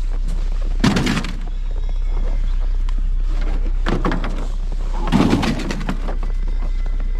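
Wind rumbling on the microphone, with three short scraping noises: about a second in, at about four seconds and around five seconds.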